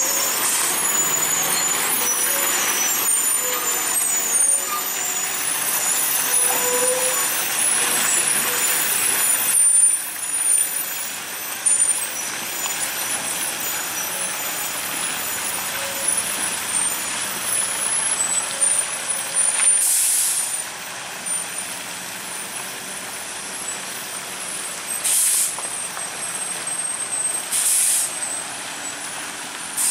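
Container semi-trailer truck running as it drives off over a muddy gravel road. It gives short air-brake hisses three times in the second half.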